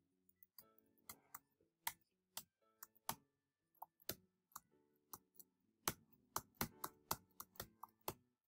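Computer keyboard keys clicking irregularly as a blues melody is played on a software organ through the keys, with faint organ notes and backing music underneath.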